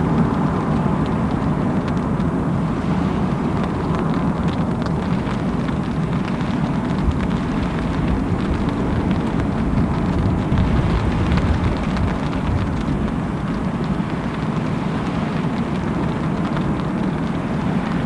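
Heavy rain falling steadily, over a constant low rumble.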